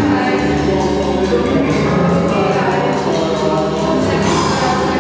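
Music with a choir singing, layered and sustained.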